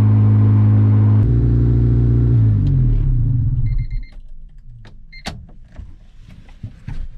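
Turbocharged Honda hatchback's straight-piped exhaust droning loudly in the cabin, its pitch dropping in two steps before the engine dies away about four seconds in. A two-tone chime sounds twice, and small clicks and knocks follow.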